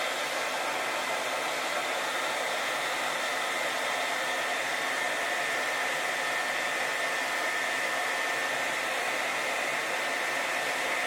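Hair dryer running steadily: a rush of air with a thin, steady whine above it, warming the glue on a camera's LCD screen to soften it.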